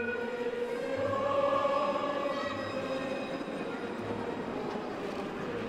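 Alstom Citadis tram's electric traction drive whining as the tram pulls away past, a chord of steady tones that rises slightly in pitch, is loudest a second or two in, then levels off.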